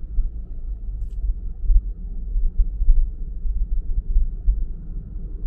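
Low, uneven rumble of a car in motion: road and engine noise.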